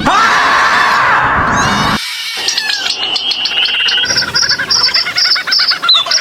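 Animal calls: a harsh, noisy call for about two seconds, then a quick cut to a fast run of rapid, repeated high chirping calls.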